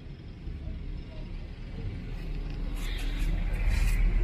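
Low vehicle-engine rumble growing steadily louder, with a hiss joining in about three seconds in.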